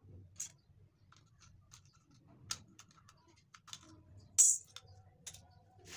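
Small plastic clicks and scrapes of an LED bulb's plastic housing being pried apart by hand, irregular, with one much louder sharp click about four and a half seconds in.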